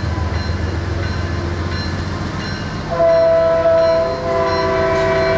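An approaching diesel train runs with a low engine rumble. About three seconds in, its air horn sounds a chord of several notes at once, held as a long blast with a brief break partway through.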